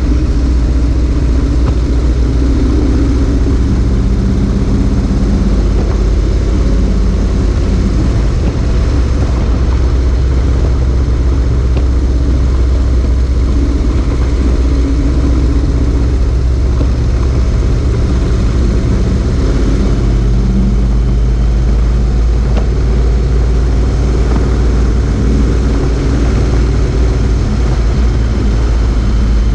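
Motorcycle riding at road speed: a steady engine note under heavy road and wind noise. The engine note changes about twenty seconds in.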